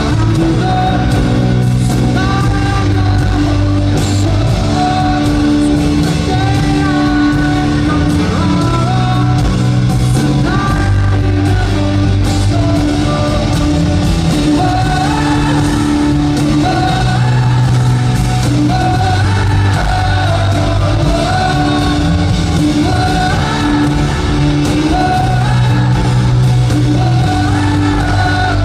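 Pop-rock band playing live with a lead singer, heard from the crowd in an arena: steady bass and drums under a sung melody, with the hall's reverberation.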